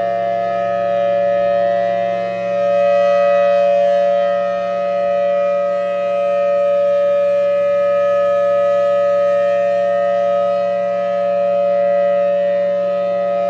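Outdoor warning siren sounding a steady two-tone chord that holds its pitch without winding up or down, the alert for a tornado warning. It is loud, with only slight swells in level.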